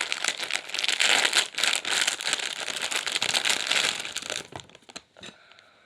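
Packaging of a Labubu blind-box figure crinkling as it is handled and pulled open by hand. The dense crinkling dies away about four and a half seconds in.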